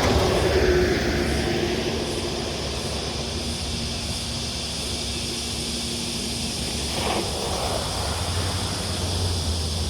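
Traffic on a country road: a vehicle passes right at the start, its pitch falling as it goes by, and another passes more quietly about seven seconds in, over a steady low drone.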